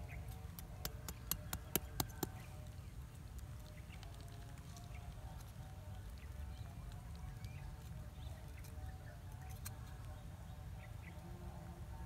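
A quick run of about eight sharp clicks in the first two seconds. After them comes a steady low outdoor rumble with a few faint short bird chirps.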